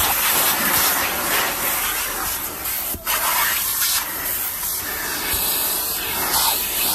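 Automatic car wash working over a truck, heard from inside it: water jets spraying and brushes scrubbing against the body in a continuous hissing, rubbing wash that swells and fades.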